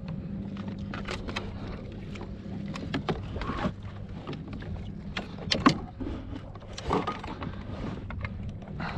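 Irregular knocks and clatter on a kayak, the loudest about halfway through, over a steady low hum.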